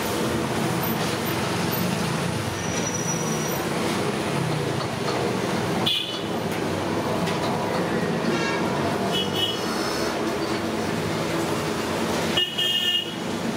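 Steady rumbling street background noise from passing traffic, with a few short high-pitched tones about halfway through and again near the end.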